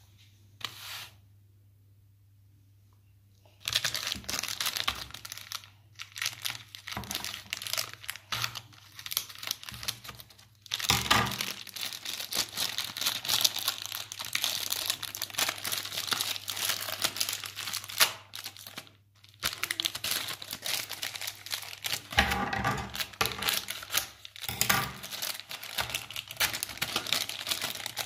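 Thin clear plastic bag crinkling and rustling in the hands as it is worked open, starting a few seconds in and going on with brief pauses.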